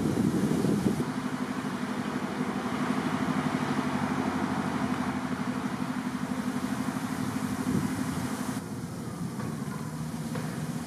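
A motor engine idling: a steady low hum with a regular pulse, getting quieter near the end.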